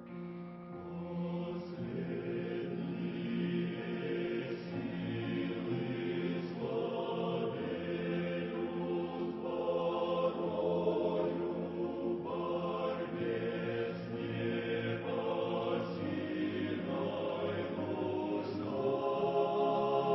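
A choir singing a slow hymn in long, held chords, growing a little louder near the end.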